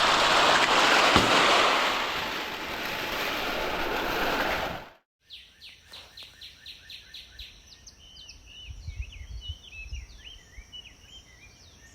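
A loud, even rushing noise for about five seconds that cuts off abruptly. Then small birds chirp and sing, with a faint steady high tone behind them.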